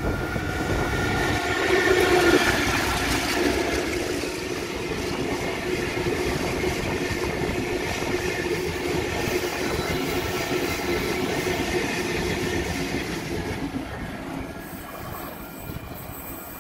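A 44 class diesel-electric locomotive passes close by, loudest about two seconds in, hauling a Waratah Series 2 double-deck electric set. The set's wheels run steadily along the rails as the cars go past, and the sound drops away near the end.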